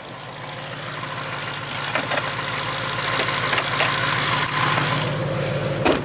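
A supercharged 2019 Ford Mustang GT's 5.0-litre V8 idling steadily with the hood open, then the hood slammed shut with a single loud thump near the end.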